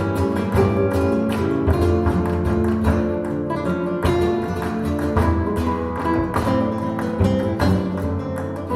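Flamenco-style instrumental music: fast plucked and strummed acoustic guitar over a steady bass line, played back through B&W 706 S2 speakers driven by a Luxman L-505uX II integrated amplifier.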